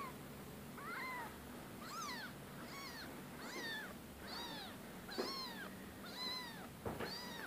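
A young kitten meowing over and over, high thin calls that rise and fall, about one a second. A couple of sharp knocks are heard among the calls, about five and seven seconds in.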